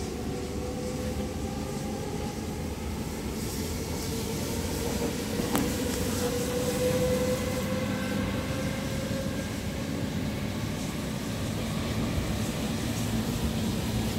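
Cabin noise inside a moving NS SGMm Sprinter electric train: a steady rumble of wheels on rail, with a motor whine that slowly rises in pitch and fades out about two-thirds of the way through. A single click comes about halfway, and the noise is louder for a few seconds around the middle as another train passes on the next track.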